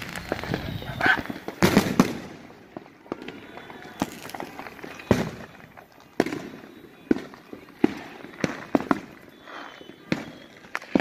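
Fireworks going off around the neighbourhood: a string of sharp bangs and pops at irregular intervals, loudest about two seconds in, with more scattered through the rest.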